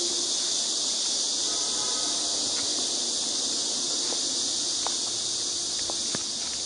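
Steady high-pitched hiss, with a few faint clicks.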